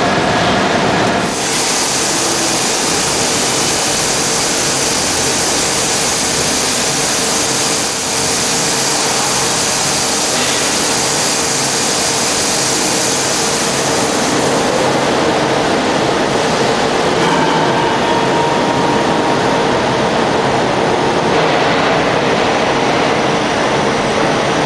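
CDRA 500 hydraulic wheelset press running: a loud steady hum with a constant mid-pitched tone, plus a bright hiss that comes in suddenly about a second in and fades out about two thirds of the way through.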